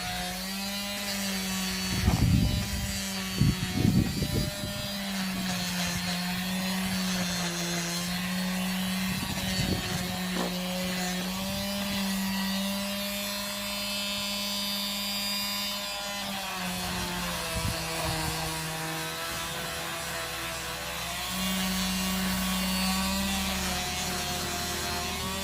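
Electric disc sander running against wood. Its motor hum sags and recovers in pitch as it is pressed and eased off, with a few louder, rougher bursts about two to four seconds in.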